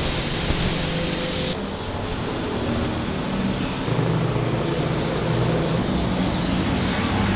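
Compressed-air blow gun hissing as it blows water off a freshly washed motorcycle, cutting off about a second and a half in. After that, an air compressor runs with a steady hum.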